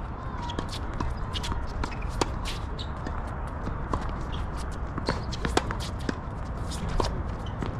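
Tennis play on a hard court: many short sharp knocks from ball strikes and bounces, mixed with footsteps and shoe scuffs, over a low rumble of wind on the microphone.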